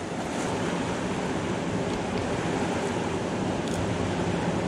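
Mountain river rushing steadily.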